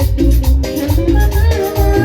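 Loud amplified Latin dance music with a heavy, steady bass beat and a melody line over it.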